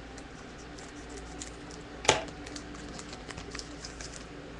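Foil trading-card pack being handled and opened: scattered light crinkles and ticks, with one sharp click about two seconds in.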